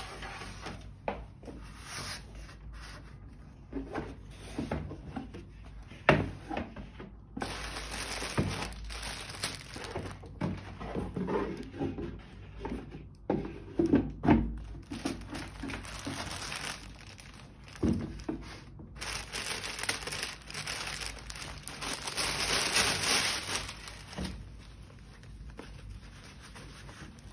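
Thin plastic wrapping crinkling and rustling as a handbag is unpacked from its box, with a few sharp knocks from the box being handled.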